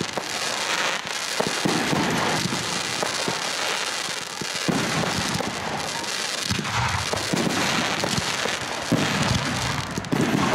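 Aerial fireworks display going off: a dense, continuous run of bangs and crackling from bursting shells.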